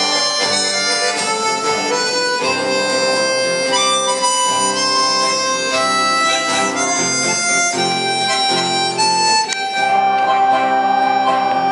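Two harmonicas playing a melody of held notes, with a guitar accompanying underneath.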